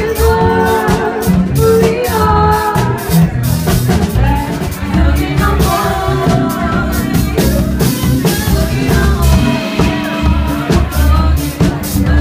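Live band playing: drum kit, electric guitar and a heavy bass line, with a woman singing lead over a steady beat.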